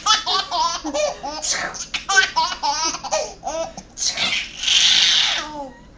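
Baby laughing in a run of short, high-pitched giggles and belly laughs, with a breathy burst lasting about a second roughly four and a half seconds in.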